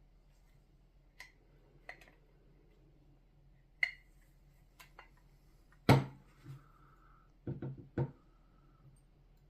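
Scattered clicks and clinks of small metal parts and tools being handled on a workbench, with one sharp knock just before the middle and a quick run of knocks after it. A faint steady hum runs underneath.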